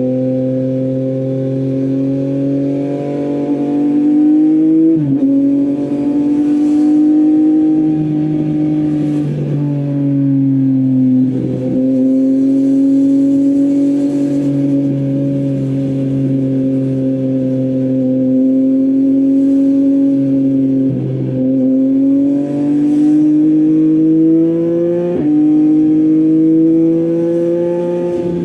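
Yamaha MT-09's three-cylinder engine running through an Akrapovic full exhaust system while riding, its note mostly steady, climbing slowly in places and dropping sharply several times, as with gear changes.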